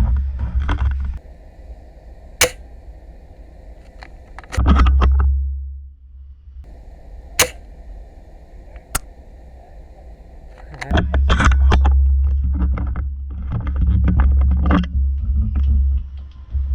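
Three sharp single shots from an SSG10A1 spring-powered bolt-action airsoft sniper rifle, the second and third about a second and a half apart. Stretches of low rumble on the microphone come between them.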